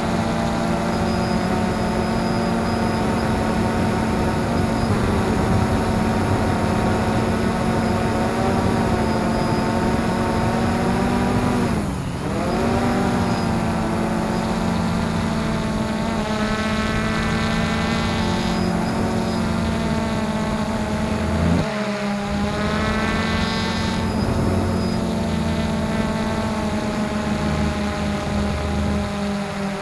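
XK Detect X380 quadcopter's brushless motors and propellers whirring steadily, heard close up from the camera on board. The pitch dips sharply and recovers about twelve seconds in, and drops briefly again a little after twenty seconds.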